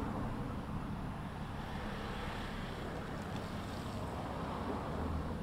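Steady rumble of a taxiing jet aircraft's engines at idle, with wind noise on the microphone.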